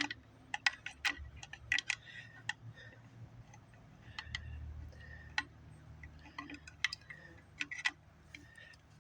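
A small wire hook clicking and scraping against a small engine's fuel tank and fuel line as it fishes the line into place: irregular light clicks and taps, with a dull handling rumble about halfway through.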